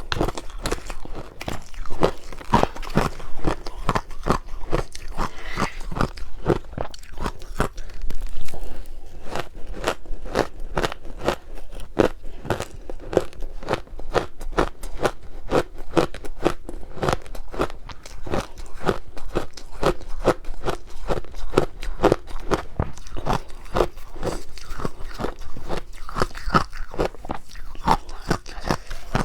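Close-miked chewing of powdery shaved ice dusted with matcha powder: rapid, steady crunching, many crunches a second, with occasional bites.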